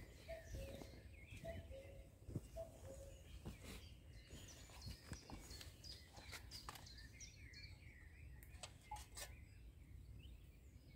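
Faint birdsong, with a low two-note call repeating about once a second in the first few seconds. In the second half come soft crinkling and clicks as a foil food pouch is handled.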